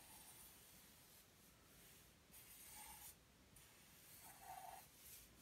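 Faint pen strokes scratching on paper while a drawing is inked, several strokes with short pauses between.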